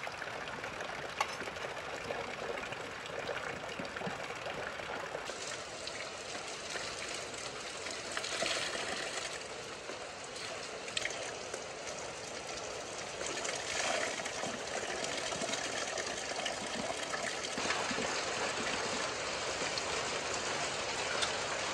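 Steady rush of running water. From about five seconds in, it is water gushing from an outdoor standpipe tap and splashing onto stones and into a steel bowl being rinsed under it, with a few light knocks.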